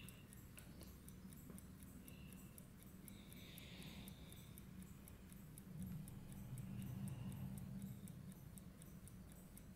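Near silence: room tone with faint, fast, even ticking of a timepiece, about four or five ticks a second, and a low hum that swells briefly a little past the middle.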